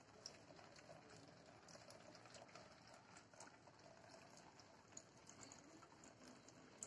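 Near silence: faint background hiss with a few soft ticks.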